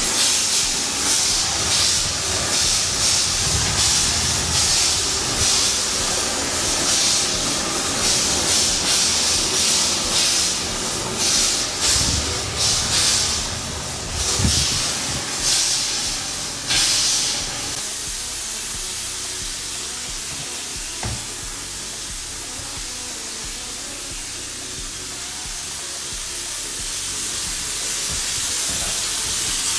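Loud hissing that surges unevenly for the first half, then settles into a steadier, quieter hiss that swells slightly near the end.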